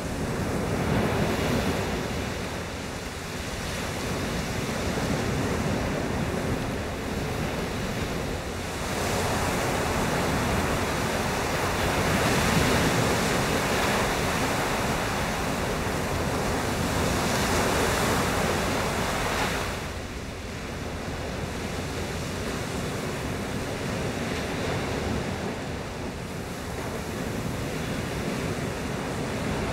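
Sea surf breaking and washing on the beach, with strong wind rushing over the microphone. The noise swells louder for about ten seconds midway, then eases back.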